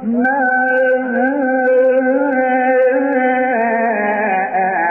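A man reciting the Quran in the melodic, drawn-out style, holding one long unbroken phrase with wavering ornaments that steps down lower about three and a half seconds in.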